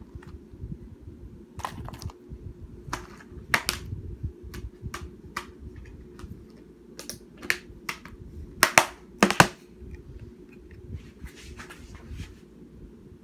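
Plastic DVD case being handled and opened and the disc pried off its hub: a string of sharp plastic clicks and snaps, the loudest a quick cluster about nine seconds in.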